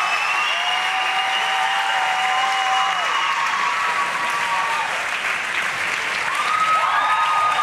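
Audience applauding steadily at the end of a stage performance, with a few long held tones sounding over the clapping.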